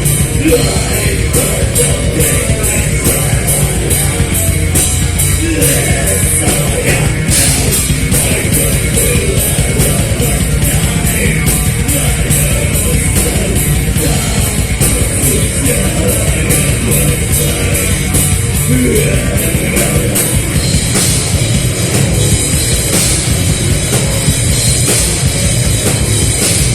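A live heavy rock band playing loud, with the drum kit's cymbals struck in a steady, fast rhythm over dense, full-band music.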